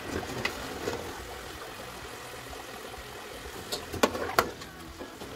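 Parboiled potato wedges deep-frying in a pot of hot oil, a steady sizzle. A metal skimmer knocks against the pot twice about four seconds in.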